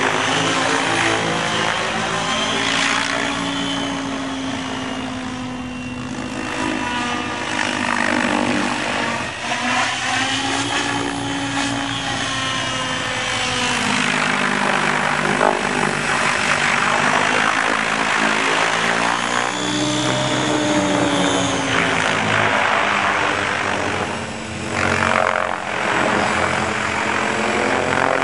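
Align T-REX 800 radio-controlled helicopter flying, its spinning rotors making a steady whirr whose pitch rises and falls several times as it passes back and forth.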